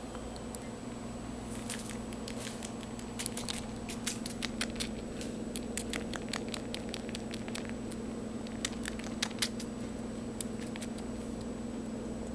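Kitten suckling at its mother's teat: irregular quick wet clicks and smacks, thickest in two spells a few seconds apart, over a steady low purr.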